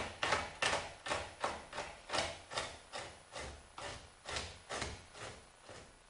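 A fleshing knife scraping fat off a skinned raccoon hide in short, rhythmic push strokes, about two to three a second, fading toward the end.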